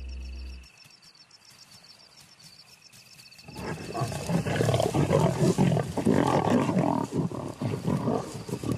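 Lions growling and snarling over a fresh kill, loud and rough, starting about three and a half seconds in; before that only faint night insects chirping.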